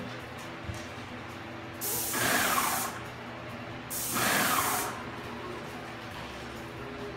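Paint sprayer gun spraying in two hissing bursts of about a second each, about two seconds in and again about four seconds in, over a steady low hum.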